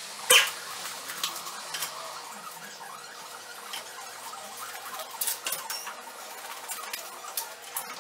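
Scattered metal clinks and knocks from car parts and tools being handled, with light squeaks, one loud clack just after the start and a few sharper knocks around the middle, over a faint steady hum.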